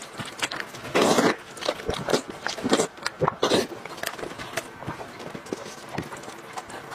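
Close-miked eating: a person chewing and biting food, with many small wet clicks and smacks. Two louder rushes of noise come about a second in and at about three and a half seconds.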